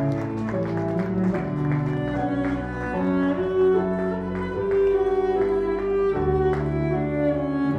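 Wedding processional music played on bowed strings, cello and violin, in slow held notes that change about once a second.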